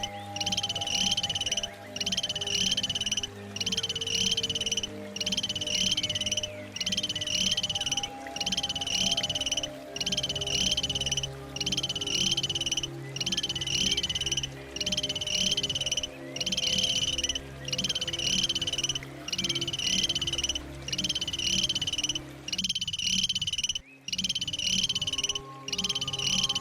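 A repeated animal call, each about a second long and coming about once every second and a half, over low steady tones.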